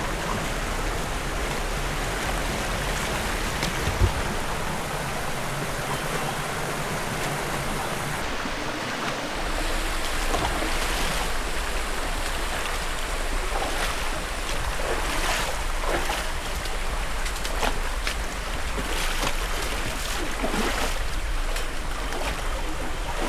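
Steady rush of a rocky river's flowing water, with a single sharp knock about four seconds in and scattered short splashes or knocks later on.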